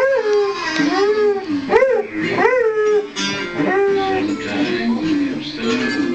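An Airedale terrier howling along with guitar music. Its howls swoop up and fall back several times in the first three seconds or so, and the guitar carries on after.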